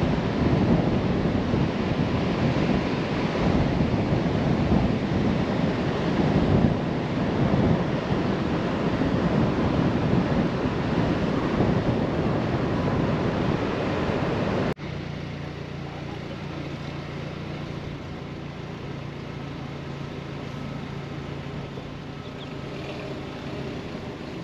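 Wind blowing on the microphone over the rush of surf, cut off abruptly about two-thirds of the way through by a quieter, steady low engine hum.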